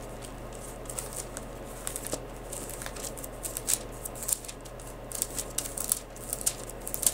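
Thin Bible pages being leafed through by hand: a run of short, irregular rustles and flicks of paper.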